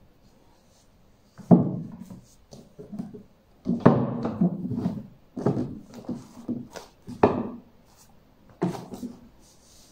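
Picture books being set down and knocked against the ledges of a wooden bookshelf: a series of thunks, about five louder ones a second or two apart with lighter knocks and handling between.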